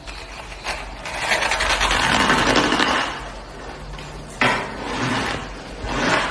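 Shaved ice being bitten and chewed: a long grainy crunch for about two seconds, then a sharp bite about four and a half seconds in followed by more crunching.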